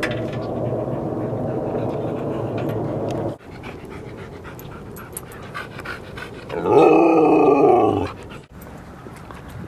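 Siberian husky giving a loud, wavering howl-like vocalization lasting about a second and a half, a little past the middle. Before it comes a steady low rumble that cuts off suddenly about three seconds in.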